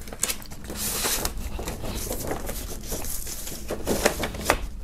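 A vinyl record being slid into a white paper inner sleeve: papery rustling and sliding in several short strokes, with a few sharper taps near the end.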